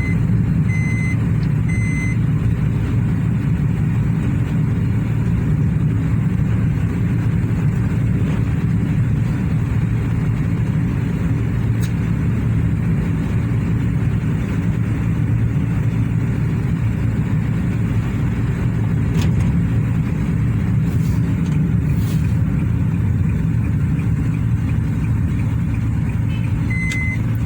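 Steady low rumble of a three-cylinder Honda N-WGN kei car heard from inside the cabin. A short run of high electronic beeps, like a reverse-gear warning, sounds about a second in and again near the end.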